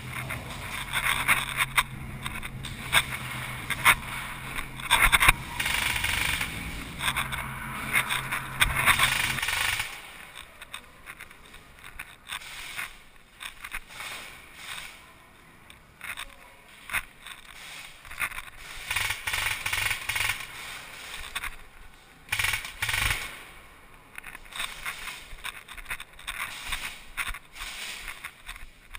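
Scuffing and movement noise from an airsoft player, with scattered clicks and short bursts of airsoft gun fire; a steady low hum runs under the first ten seconds and then cuts off.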